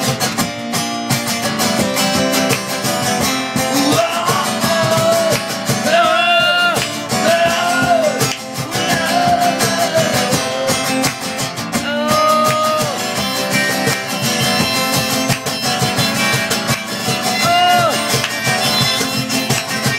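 Live acoustic song: a strummed acoustic guitar with a voice singing long, wavering held notes over it, the notes coming every few seconds.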